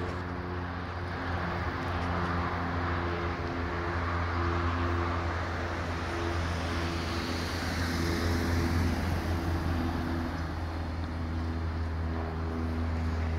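Road traffic: a car drives past with a steady low rumble, its engine tones coming and going.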